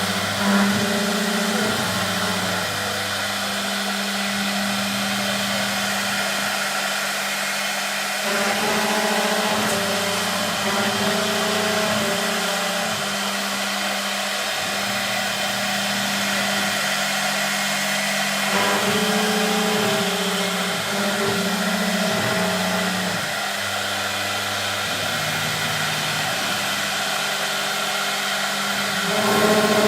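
Four-spindle CNC router machining wood: a steady high whine and cutting hiss, under a motor hum that steps between pitches every second or two as the machine moves.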